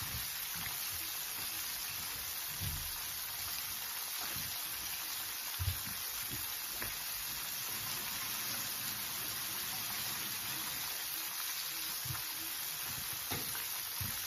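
Oil sizzling steadily around a pre-boiled, flour-coated whole chicken shallow-frying in a pan, with a few faint low knocks, the clearest about halfway through.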